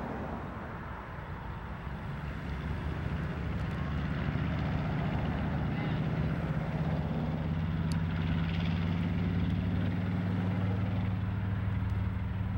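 Twin radial piston engines of a B-25 Mitchell bomber running with a deep, steady drone. The engines grow louder over the first few seconds as they come up to power for the takeoff roll, then hold steady.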